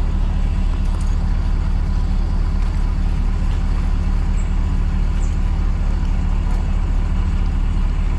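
Steady low rumble of a moving road vehicle: engine and tyre noise with no change in pitch.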